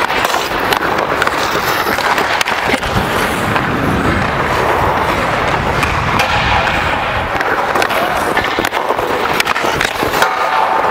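Ice hockey skate blades carving and scraping on the ice, picked up close by a microphone worn by the skater, with a few sharp clacks of stick on puck.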